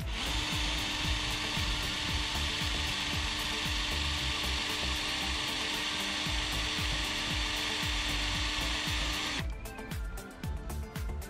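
Ryobi cordless drill running at a steady speed at a solar panel mounting bracket on a minivan roof rack, stopping suddenly about nine seconds in.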